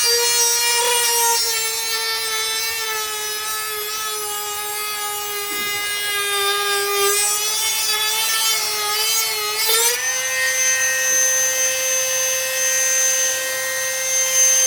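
Electric power tool cutting fiberglass: a steady high motor whine that sags and wavers a little under load, then rises slightly and holds steady about ten seconds in as the tool runs free.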